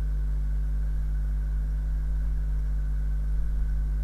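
Steady low electrical hum, the mains hum of the recording setup, with no other sound on top.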